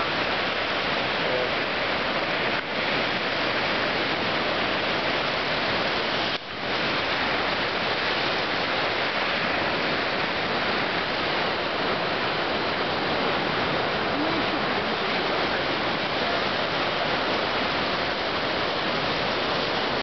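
Murchison Falls on the Victoria Nile and the rapids below it: a steady, dense rush of falling and churning whitewater, dipping briefly twice in the first few seconds.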